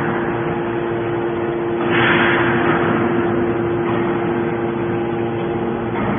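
Horizontal hydraulic scrap metal baler running with a steady hum, with a louder rush of noise about two seconds in.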